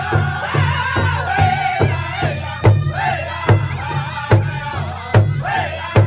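Powwow drum group singing together in high, wavering voices over a big drum that they strike in unison with drumsticks, a steady beat of a little over two strokes a second. From about halfway, every other stroke comes louder.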